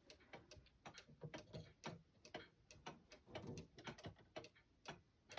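Antique English dial wall clock ticking faintly, a run of short sharp ticks.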